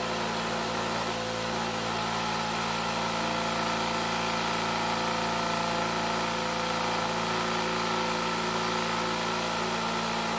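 Vibrating table running with a steady hum, shaking a mold of wet plaster investment to drive the air bubbles out of it.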